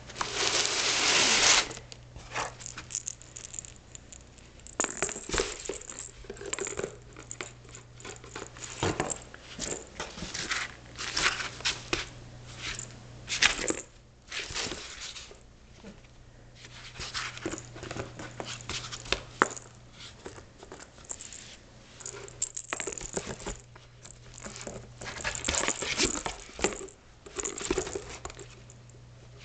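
A Shetland sheepdog puppy shifting, scratching and chewing in a cardboard box: irregular scrapes, scuffs and rustles of cardboard, with a louder scuffing burst in the first second or so.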